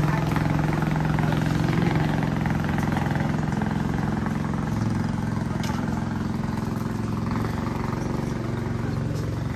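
An engine running steadily at a constant speed, with a low hum that barely changes in pitch.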